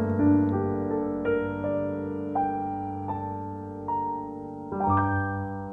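Instrumental music with no singing: a slow piano line of single notes, roughly one a second, ringing over held low chords. A fuller chord is struck near the end, and the overall level gradually falls away.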